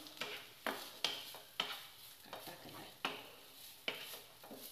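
A spatula stirring and scraping a frying grated-carrot and chicken filling around a non-stick pan, with irregular scrapes and knocks against the pan over a light sizzle.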